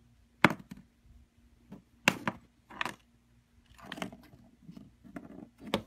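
Small dollhouse furniture and pieces clacking and clattering as a large cat pushes through the dollhouse: a few sharp knocks spread out, with a softer scraping rustle near the middle.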